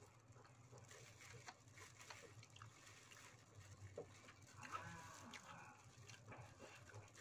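Faint eating sounds: small wet chewing clicks and the crinkle of plastic gloves as hands pull apart fried chicken, over a low steady hum. About five seconds in there is a faint wavering call.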